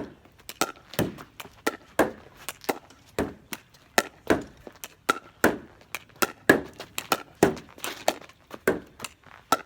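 Pickleball rally against a garage door: a paddle striking a plastic pickleball and the ball rebounding off the door, a quick, even run of sharp hits about two to three a second.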